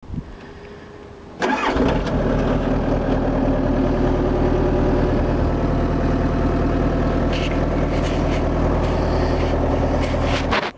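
Yanmar 50 mini excavator's diesel engine starting: it catches about one and a half seconds in and then runs steadily. The sound cuts off abruptly near the end.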